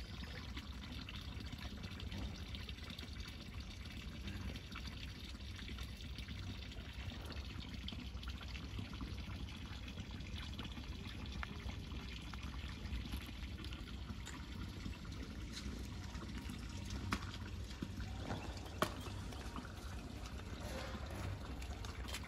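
Irrigation water from a tubewell bore trickling and flowing steadily along a field channel, an even watery hiss. Two short clicks sound near the end.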